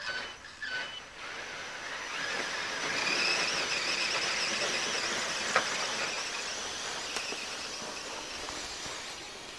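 Stock brushless Traxxas E-Revo RC truck, running on 6S LiPo power, with a high-pitched wavering motor whine over a hiss as it pulls a sled away over snow. The whine builds over the first few seconds, then slowly fades as the truck moves off, with one sharp tick just past the middle.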